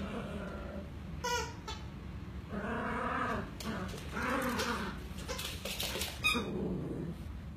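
Squeaky dog toys squeaking as schnauzer puppies chew and tug at them. There is a short squeak about a second in, two longer drawn-out squeaks in the middle, and a sharp high squeak near the end, with some clicking between them.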